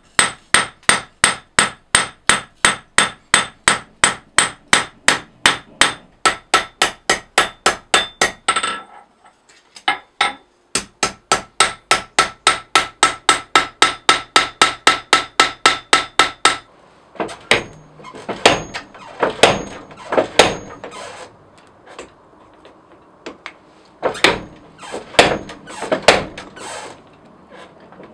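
Hand hammer striking a red-hot file-steel knife blade on an anvil in a quick, steady rhythm, the anvil ringing with each blow. About nine seconds in there is a short pause with two blows, then the rhythm resumes. After about sixteen seconds it gives way to slower, irregular, louder blows.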